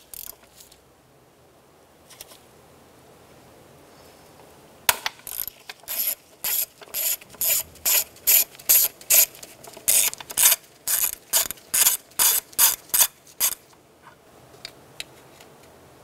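1/4-inch ratchet, driving a 12 mm socket on a long extension, clicking in short rattling runs about twice a second as it backs out the engine's knock sensor bolt. The runs start about five seconds in and stop a couple of seconds before the end.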